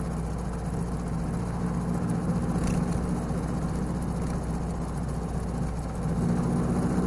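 Engine of a vintage Singer car running steadily as it drives along, with a low, even engine note under a haze of tyre and road noise.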